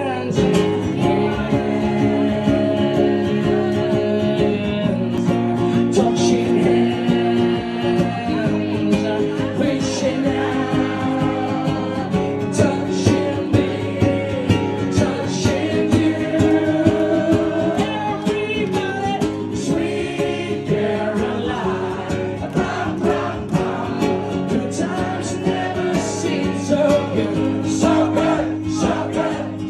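A man sings into a microphone while playing chords on an acoustic guitar, the chords changing every few seconds under the vocal line.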